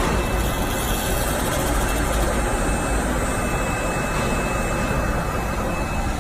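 Steady machine noise from an automatic filter bag sewing and hot-welding production line running, with a faint steady high whine.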